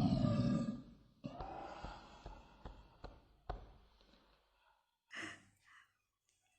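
A woman's low, rough burp, brought up by a fizzy cold drink, followed by a softer breathy vocal sound and a few light taps.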